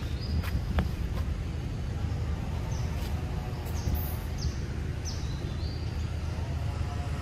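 Outdoor ambience: a steady low rumble with a couple of sharp clicks in the first second and several short, high chirps through the middle.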